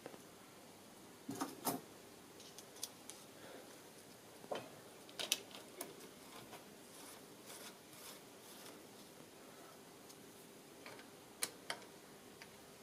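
Faint, scattered clicks and taps of small steel parts and a screwdriver against a lathe's quick change tool post as its locking piston plates are fitted back in.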